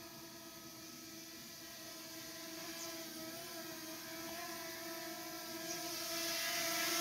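Quadcopter drone's propellers whirring with a steady pitched hum, growing louder as the drone comes closer.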